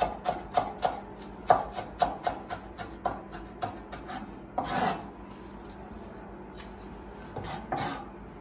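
Kitchen food preparation: rhythmic scraping strokes about three a second, with one longer scrape near five seconds, then thinning out to a few scattered strokes near the end.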